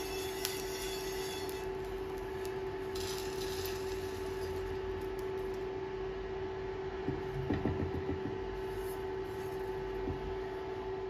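Induction cooktop humming steadily with one constant tone, while a pan is handled on it: a few light knocks as it is set back down on the glass top about seven seconds in, and a small knock near the end as a silicone spatula works in the pan.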